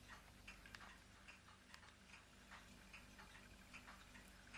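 Near silence: room tone with a faint steady hum and faint, irregular ticks.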